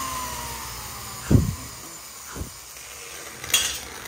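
Hanging flexible-shaft grinder winding down after being switched off, its whine falling in pitch and fading over about the first second. Then two dull knocks and a sharp click as the metal cylinder head is handled on a wooden crate.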